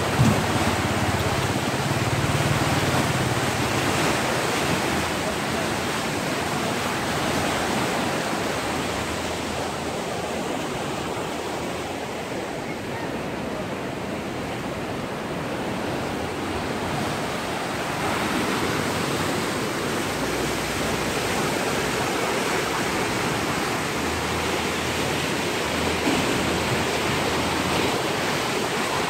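Water rushing and churning through the gates of a concrete weir into the pool below, a steady rush with no let-up.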